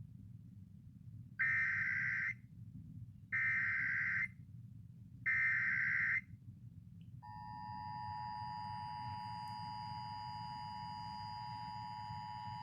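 Emergency Alert System required monthly test: three one-second bursts of the digital SAME header data, then from about seven seconds in the steady two-tone attention signal (853 and 960 Hz sounded together), with a faint low hum underneath.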